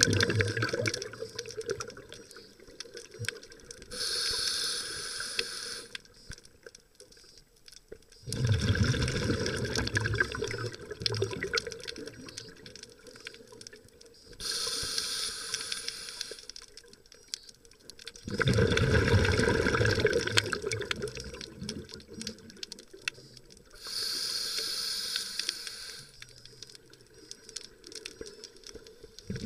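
Scuba diver breathing through a regulator, heard underwater. A hiss on each inhale alternates with a louder burst of bubbling exhaust on each exhale, about one breath every ten seconds.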